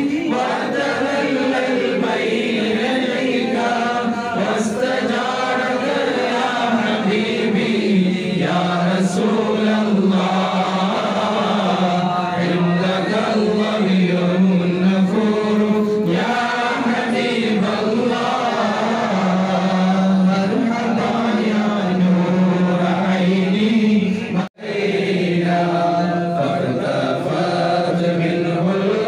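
A group of men chanting a devotional Mawlid song together, with lead voices carried on handheld microphones. The singing is continuous and briefly cuts out once, about five seconds before the end.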